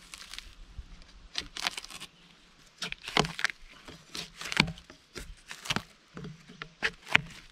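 Footsteps crunching over forest ground, an uneven string of short crunches and knocks about one or two a second.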